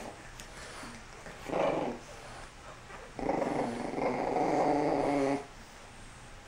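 French bulldog puppy play-growling in a tug-of-war over a toy: a short growl about a second and a half in, then a longer, steady growl of about two seconds.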